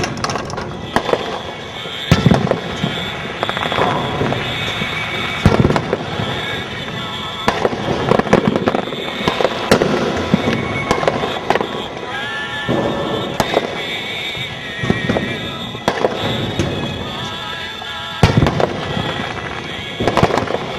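Aerial fireworks display: shells bursting every few seconds with sharp booms, over continuous crackling from the shells.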